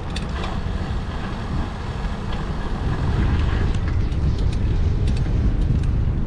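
Steady low wind rumble on the microphone during a bicycle ride, with scattered sharp clicks and ticks.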